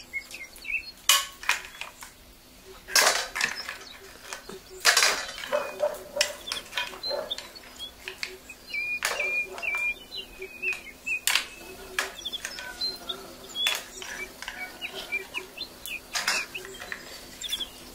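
Small birds chirping repeatedly, with scattered sharp knocks and clatters of objects being handled.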